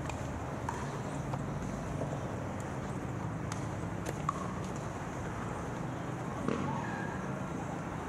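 Steady outdoor city background noise with a low traffic hum and a few light clicks.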